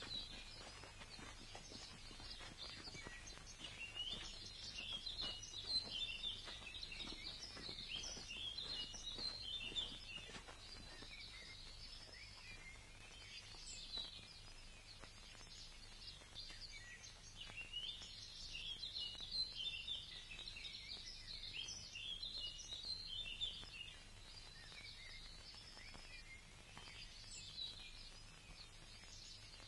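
Faint songbirds chirping, in spells of quick, high twittering notes, over a low steady hum.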